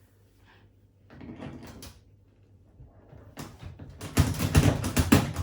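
Scraping and knocking of a washing machine transit bolt being twisted and pulled in its hole in the back panel. The bolt keeps spinning rather than coming out. There is a short rattle about a second in, and a louder run of knocks and scraping in the last second and a half.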